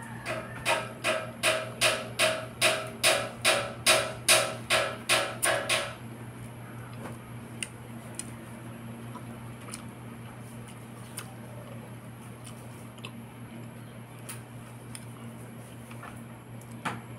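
A rapid, even series of about fifteen ringing knocks, like hammer blows on metal, growing louder and stopping about six seconds in. A steady low hum runs underneath.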